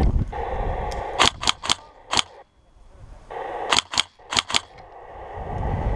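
Airsoft gun firing eight sharp single shots in two quick groups of four, the second group about a second and a half after the first.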